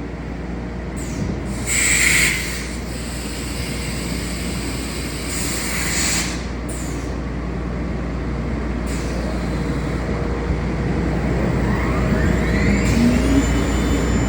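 Workshop machinery running with a steady hum, two short hissing bursts, and a rising whine near the end as a motor speeds up.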